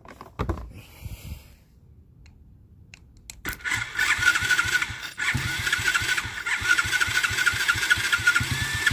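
Electric starter motor of a 49cc Chinese kid's ATV cranking the engine over when the starter solenoid is bypassed with a screwdriver across its terminals. The starter runs with a steady whine over an even chugging beat, starting about three and a half seconds in, with a brief break about five seconds in. The starter turning over this way points to a faulty solenoid.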